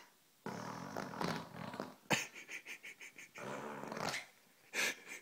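A toddler blowing raspberries with his mouth pressed into a leather sofa cushion, making fart-like buzzing. Two long buzzing blows; the first ends in a sharp smack and a quick run of ticks, and a short loud burst comes near the end.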